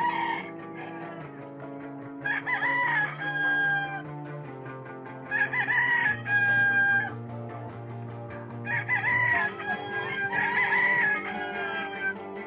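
Roosters crowing, four long crows a few seconds apart, over steady background music.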